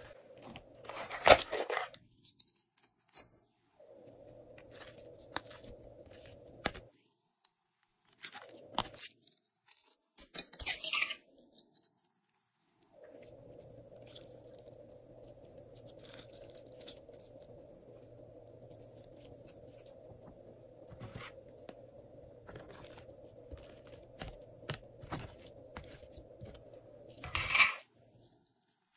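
Soft blue slime being squeezed, stretched and folded by hand, giving wet clicks, crackles and pops, with louder crackly squishes about a second in, around ten seconds in, and near the end. A faint steady hum runs underneath.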